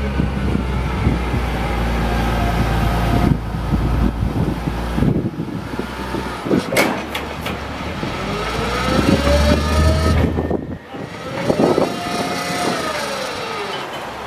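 Digger derrick truck's Caterpillar 3126 diesel running to drive the Altec digger's hydraulics while the boom lifts the auger out of the hole. A hydraulic whine rises and falls in pitch several times as the controls are worked, with a few sharp knocks about seven seconds in.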